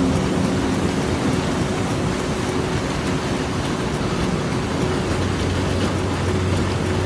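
Steady rushing roar of a debris flow, mud, water and rocks pouring down the slope. A low steady hum joins about five seconds in.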